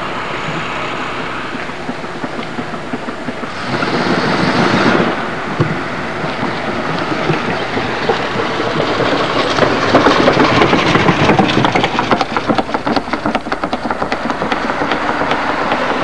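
A car being driven hard through a burnout: a loud, continuous rushing noise of engine and spinning tyres that swells about four seconds in and turns dense and crackly from about ten seconds on.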